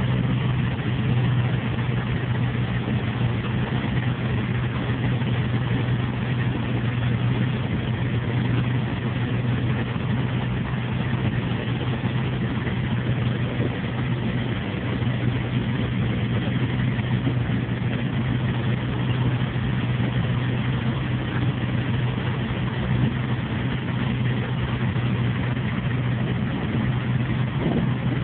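Inboard marine engine running steadily just after a repair, a constant low hum heard through the open engine hatch.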